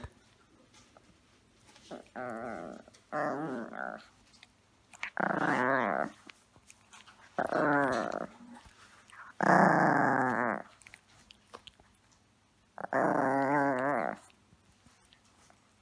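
Small Miniature Pinscher–Chihuahua-type dog growling while it chews and tugs on a drawstring cord. There are six growls of about a second each, with short pauses between them and a wavering pitch.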